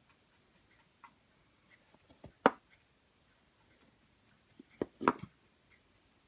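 Scattered light clicks and taps of plastic Play-Doh toy pieces being handled and set down, the loudest about two and a half seconds in and a quick cluster of three or four around five seconds in.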